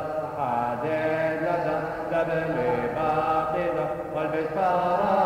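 Syriac Orthodox liturgical chant: singing voices holding long notes that slide up and down between pitches.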